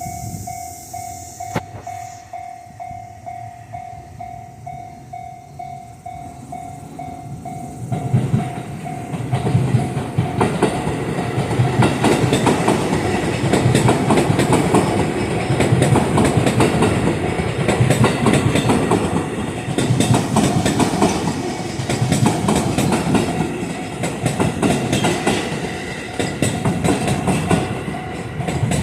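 Level-crossing warning bell ringing in a steady repeating pattern. About eight seconds in, a JR train arrives and passes over the crossing, its wheels clattering over the rail joints in a rhythmic clickety-clack that lasts to the end and drowns out the bell.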